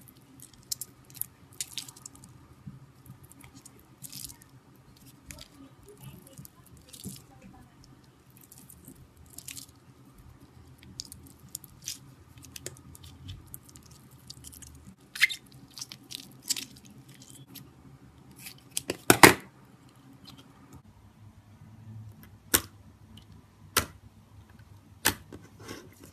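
Irregular sticky clicks and crackles of a slime-filled stress ball being handled and cut, with the loudest snap about nineteen seconds in.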